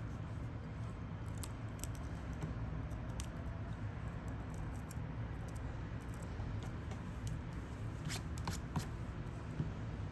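Faint scattered clicks and scrapes of small repair tools working at an Apple Watch's cracked round rear glass, a few near the start and a quick cluster near the end, over a steady low hum.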